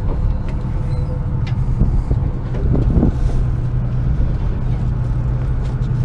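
Fishing boat's engine running with a steady low drone, with a few faint knocks on the deck.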